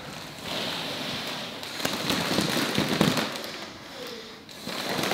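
Crinkling and crackling of a balloon being inflated with an air pump, over a steady hiss.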